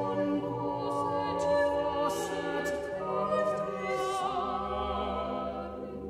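Unaccompanied choir singing slow Renaissance sacred polyphony in Latin, several voice parts holding long, overlapping chords.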